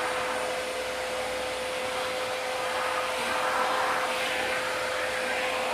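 Vacuum cleaner running steadily, a constant rushing whine, as it sucks cobwebs and dust out of a corner.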